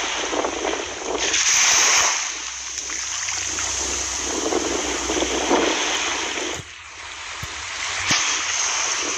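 Rushing, splashing water sound, swelling about a second and a half in and dropping away briefly about two-thirds of the way through.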